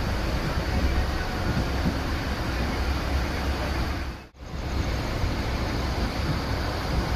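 Steady running noise of the 22466 Baba Baidyanath Dham Express heard from inside a coach, a low rumble under an even roar. It cuts out briefly about four seconds in, then carries on as before.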